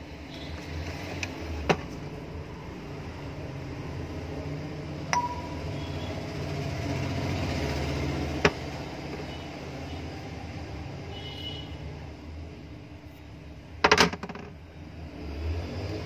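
Metal parts of a mixer grinder motor being handled as its armature is taken out: a few single sharp clicks several seconds apart, then a short rattle of clicks near the end, over a steady low hum.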